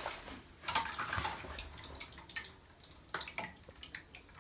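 Bathtub water splashing and dripping as a small rubber-band-powered wooden toy boat's propeller churns through it. There are a few sharp splashes about a second in and again about three seconds in.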